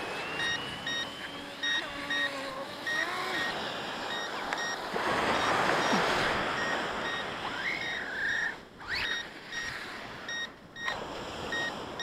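An electronic beeper sounding a steady run of short high beeps, about two a second, over surf washing onto the shore; the surf swells about five seconds in.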